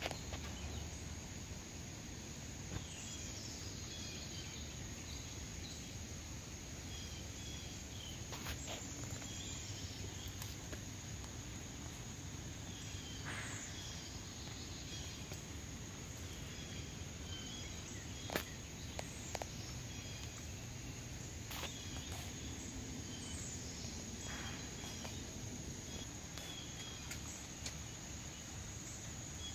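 Outdoor insect chorus, crickets droning steadily at a high pitch, with scattered short high chirps and a few sharp clicks.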